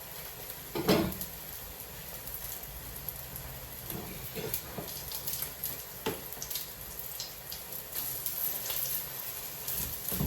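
Cottage-cheese cakes (syrniki) frying in hot oil in a pan, a steady sizzle, with a louder knock about a second in and a few lighter clicks later.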